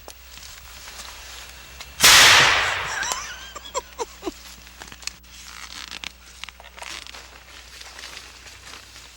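A homemade potato cannon firing: one sudden loud bang about two seconds in, its tail dying away over about a second.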